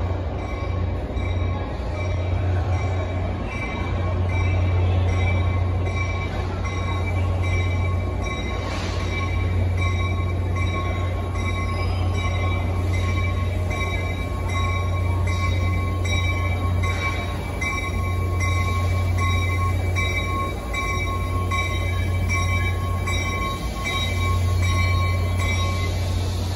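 An NJ Transit commuter train pulls slowly into a terminal track, over a strong, steady low hum of the trains and a steady high-pitched whine. A faint ringing repeats about once a second.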